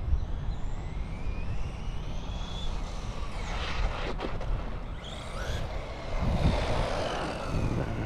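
High-pitched whine of a small brushless electric RC truck's motor, rising and falling in pitch several times as the truck speeds up and slows down, over a low rumble.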